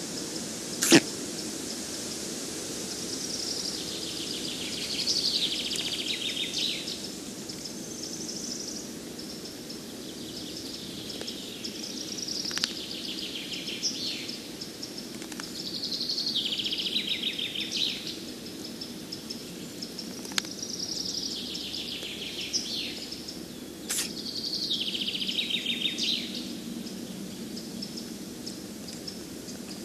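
Black stork nestlings chattering in rapid rasping trills, in bouts of a few seconds about four times, with a few sharp clicks, over a steady low background noise.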